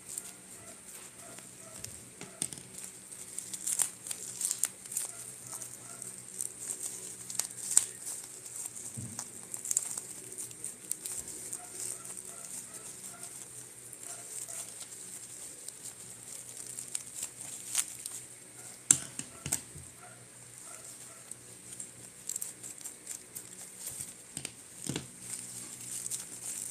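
Plastic bubble wrap crinkling and rustling as it is cut with scissors and pulled off a small package by hand, with irregular sharp crackles.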